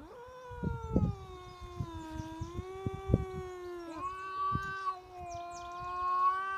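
A domestic cat's long, drawn-out yowl in a territorial stand-off with another cat: one unbroken, wavering wail that steps up in pitch about four seconds in and carries on. A few short low thumps sound under it.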